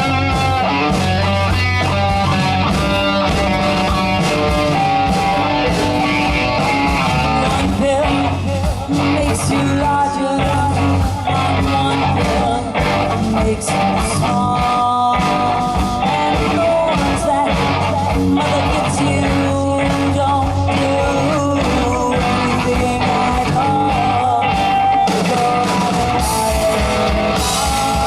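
Rock band playing live: electric guitar, bass and drums, with a lead vocal singing over them.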